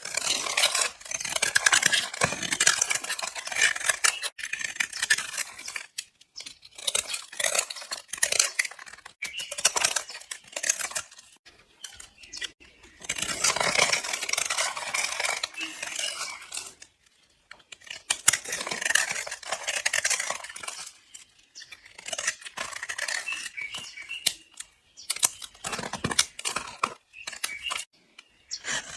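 A knife blade slicing through bars of soap, each cut a crisp, crunchy crackle, repeated in bursts of a second or several seconds with short pauses between.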